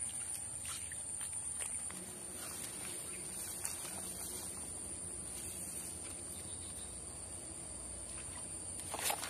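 Steady high-pitched drone of insects, with a few faint clicks and a short louder burst near the end.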